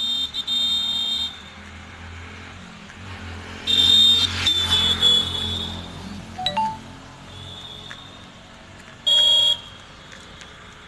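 Road traffic with a vehicle horn honking: a blast in the first second, a longer one about four seconds in, and a short beep near the end.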